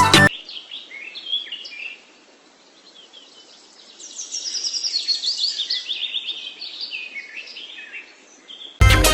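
Small birds chirping and twittering, with runs of quick, stepped high notes in the middle, over a faint hiss. Music stops just after the start and comes back near the end.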